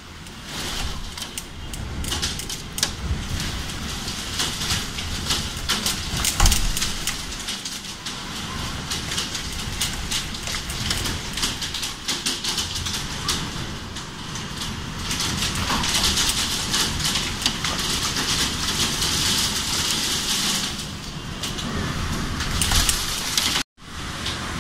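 Heavy storm downpour with gusting wind: a constant hiss of rain with many small taps of drops and a low rumble, growing louder for several seconds past the middle. The sound cuts out for an instant near the end.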